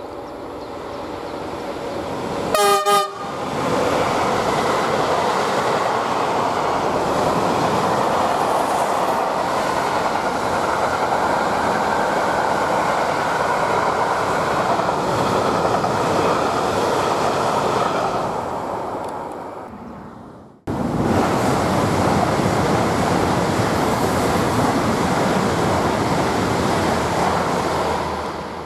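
A DB electric locomotive sounds a short horn blast about three seconds in, then its freight train of covered wagons rumbles and clatters past and fades. After an abrupt cut, an ICE high-speed electric train passes with a steady loud rushing rumble.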